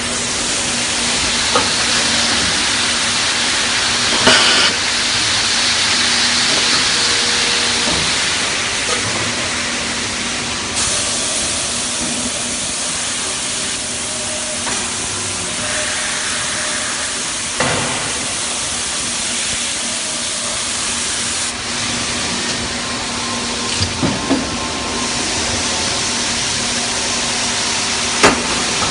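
Aluminium die-casting cell running: a steady loud hiss with a low hum under it, broken by a few sharp metal clanks.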